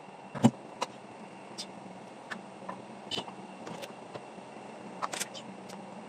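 Scattered clicks and knocks of a screwdriver and hands working on a washing machine's plastic top panel, the loudest a single knock about half a second in, over a faint steady hum.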